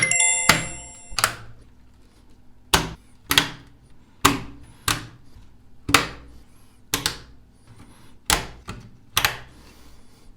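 A run of sharp hardware clicks and thunks, roughly one to two a second at uneven spacing, each dying away quickly. A brief high ringing chime sounds in the first second.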